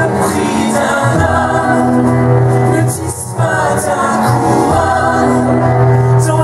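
Song from a musical-theatre show: singing over loud backing music with long held bass notes.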